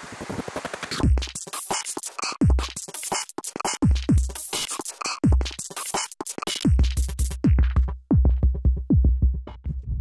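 Outro music with a beat of deep bass kicks that slide down in pitch and sharp clicking percussion, starting about a second in. It cuts off abruptly at the end.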